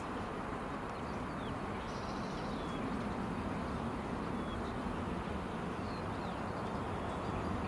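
Steady rumble and hiss of an Airbus A321's jet engines as the airliner taxis, with a few faint bird chirps over it.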